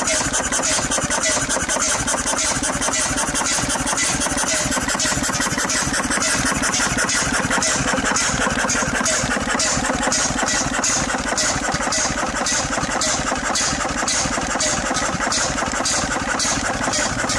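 7 HP Sunshine single-cylinder vintage stationary engine running steadily on its first run in 30 years, with an even, regular beat of firing strokes.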